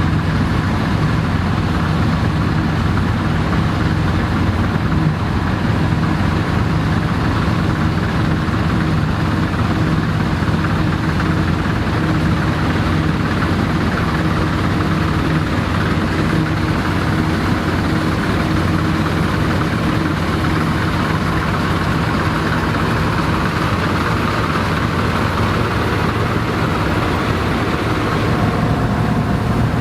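Vintage Dronningborg D2600 combine harvester running steadily under load while harvesting barley, its engine and threshing machinery making a continuous even drone.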